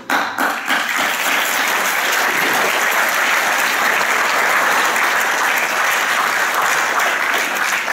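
A large audience of students applauding, with steady, sustained clapping.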